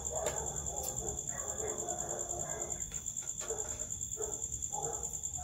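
Cricket chirping in a steady, fast-pulsing high trill, with faint muffled sounds lower down.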